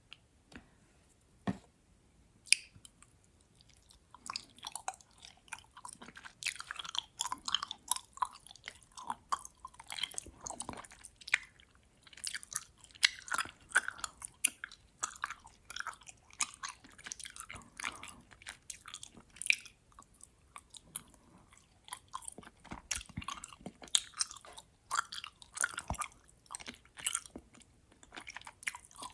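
Close-miked chewing of gummy worms: sticky, chewy mouth clicks in a dense irregular stream, starting with a few isolated clicks and picking up after about four seconds.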